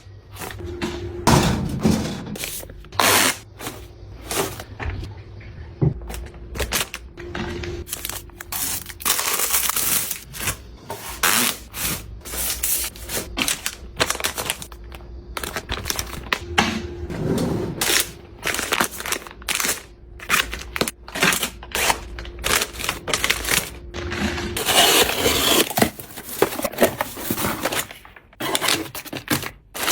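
Objects and packaging being handled and put away: a long run of irregular clicks, taps and knocks, with stretches of crinkling plastic, a few seconds in and again near the end.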